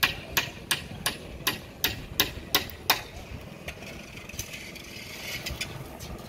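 A quick run of sharp knocks, about three a second, lasting about three seconds, over a steady low engine idle; a short hiss follows a little past the middle.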